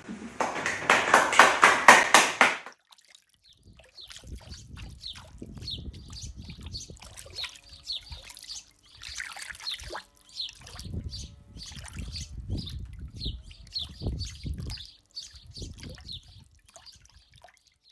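Clapping from a small audience for about two and a half seconds, then trickling, dripping water with short high chirps repeating about twice a second.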